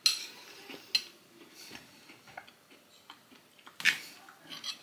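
Spoon clicking and tapping against a dessert plate: a few light clicks, the loudest near the end.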